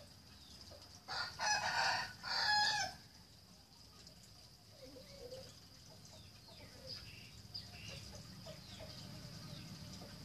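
A rooster crowing once, a single crow of about two seconds beginning about a second in.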